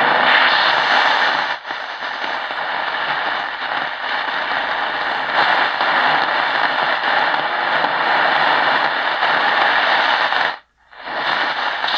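AM static hiss from a Tecsun PL-680 portable radio's speaker as it is tuned up the medium-wave band between stations. The hiss cuts out briefly near the end.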